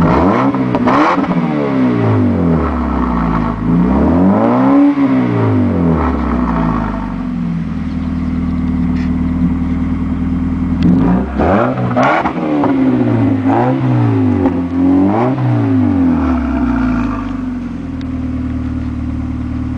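2010 Mazda 3 GT's 2.5-litre four-cylinder engine, through a Corksport aftermarket exhaust and intake, being revved with the car standing still. The revs rise and fall several times in the first few seconds, the biggest about five seconds in, then settle to a steady idle. A second run of quick revs comes from about eleven to sixteen seconds before it drops back to idle.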